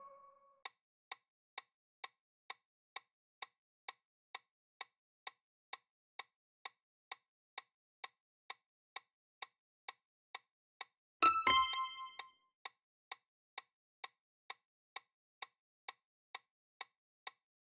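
Quiz countdown ticking, a short click about twice a second. About eleven seconds in, a two-note chime sounds as time runs out for the question.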